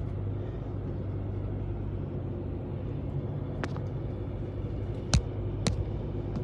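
Steady low rumble with a constant low hum, broken by three sharp clicks in the second half.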